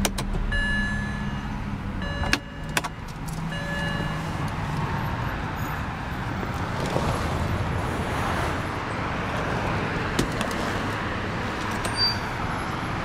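The 2007 BMW 328i's 3.0-litre inline-six is switched off with the start/stop button: its idle hum stops within the first couple of seconds, with short electronic chime tones and a couple of clicks. A steady background noise follows.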